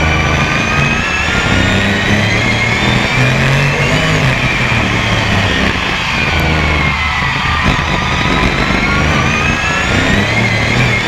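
BriSCA F1 stock car's V8 engine at racing speed, heard on board. The revs climb to about four seconds in, fall away over the next few seconds, and climb again near the end.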